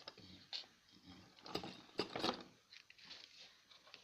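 Cardboard and paper being handled and pressed into place, with irregular rustles and a few sharp clicks between about one and a half and two and a half seconds in.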